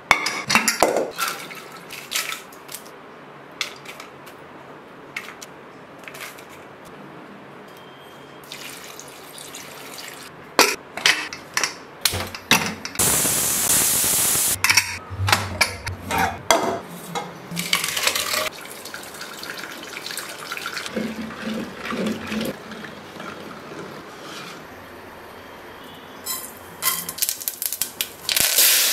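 Kitchen cooking sounds around an aluminium pressure cooker on a gas stove: scattered metal clinks and knocks, and about halfway a couple of seconds of loud hissing as the cooker lets off steam. Near the end, oil starts sizzling loudly as mustard seeds and curry leaves are tempered in the cooker.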